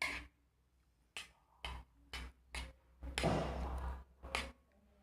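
Close-up eating sounds: a string of short, crisp crunches and mouth smacks as stir-fried swamp cabbage (water spinach) with rice is chewed, with one longer crunching sound a little past the middle.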